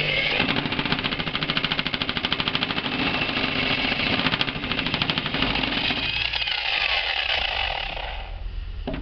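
Electric buffer (polisher) running with a pad and water-lubricated compound on a powder-coated steel tool chest, with a fast even pulsing; it is switched off and dies away about eight seconds in.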